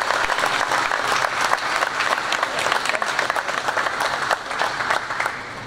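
A large group of football players clapping, a dense patter of many hands that thins out and dies down near the end.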